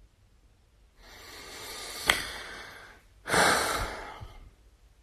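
A man breathing heavily: a long breath that swells for about two seconds, with a sharp click partway through, then a louder sigh that dies away.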